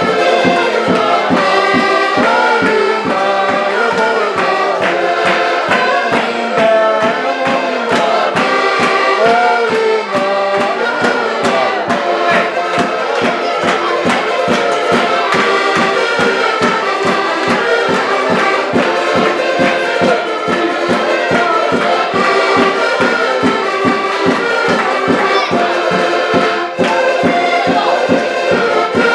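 An ensemble of accordions, piano-key and button types, playing a tune together with a steady, even beat.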